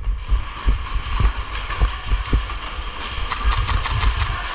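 Handling noise on a worn GoPro action camera: irregular low thumps and rustling from the wearer's movement and gear, with scattered sharp clicks.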